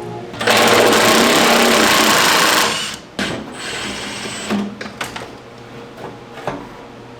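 A power tool runs for about two seconds and stops, followed by a few light clicks and knocks.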